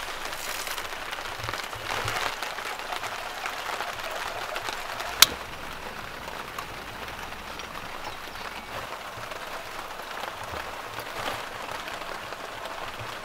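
Steady rain falling, with a single sharp click about five seconds in.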